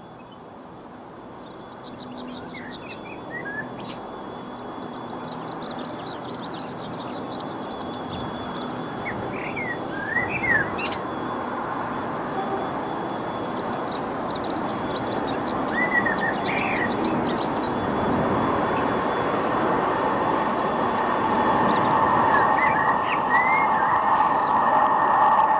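A pair of English Electric Class 50 diesel locomotives, each with a 16-cylinder engine, approaching at the head of a passenger train, their sound growing steadily louder, with a steady whine joining in over the last few seconds. Birds sing throughout.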